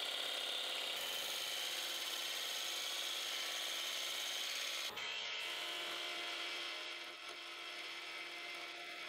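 Wood lathe turning: a steel turning tool shearing the spinning wood with a steady hiss as shavings peel away. The sound changes abruptly about a second in and again about halfway through, and is a little quieter after the second change.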